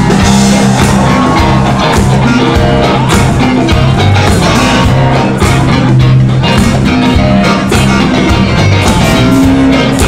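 Live band playing loudly, a drum kit keeping a steady beat under a bass line and a riff.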